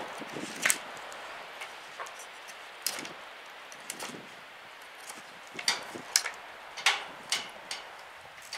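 BHK Bushcrafter fixed-blade knife shaving a peeled wooden stick: a series of short, sharp scraping strokes at irregular intervals, coming several in quick succession in the second half.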